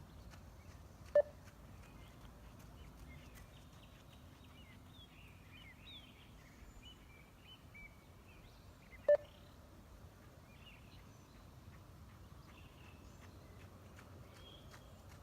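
Two short electronic beeps from a 20 m beep test (multistage fitness test) recording, about eight seconds apart, each marking the end of a 20 m shuttle at level 2. Faint bird chirping runs underneath.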